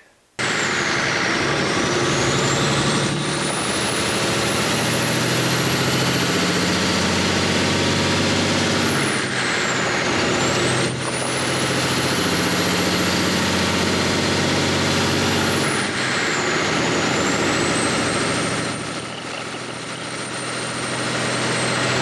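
Diesel engine running with its Switchblade turbocharger spooled, a high thin turbo whistle over the engine noise. The whistle dips and climbs back three times.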